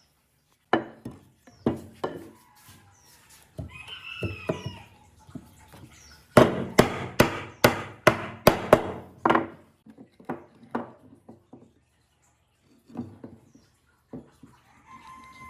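Repeated hard strikes on wood: scattered knocks, then a fast, loud run of about a dozen blows starting about six seconds in, then a few more spaced knocks. A short pitched bird call sounds around four seconds in.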